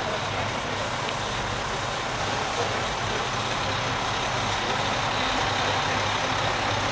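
Diesel engine of a Coca-Cola Christmas semi truck running steadily with a constant low hum.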